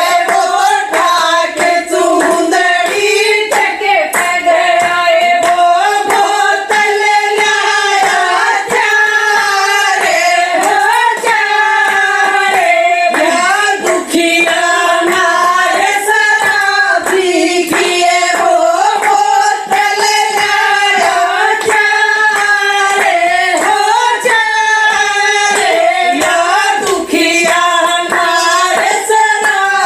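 Haryanvi folk song playing: a woman's voice singing a continuous melody over music.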